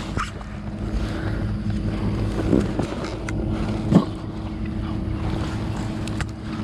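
A steady motor hum with an even low drone, under a noisy wash of wind or water. A few short knocks or splashes break through, the loudest about four seconds in.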